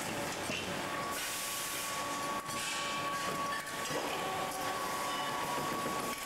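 Factory machinery running steadily at a roller machine forming a sheet-metal tube. A steady high whine comes in about a second in, with two short hisses, one near the start and one about halfway.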